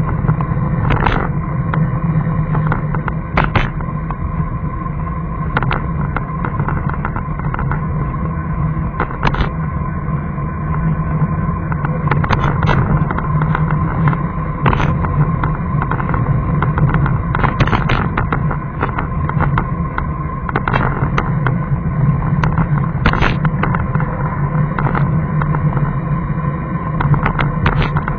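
Vehicle running along a rough concrete road, heard through a dashcam's microphone: a steady low hum with a thin steady tone, and frequent short knocks and rattles as it goes over cracks and bumps.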